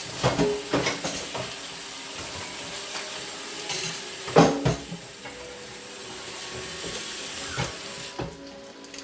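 Cooking utensil knocking and clattering against a pan, a few sharp strikes with the loudest about halfway through, over a steady hiss that cuts off near the end.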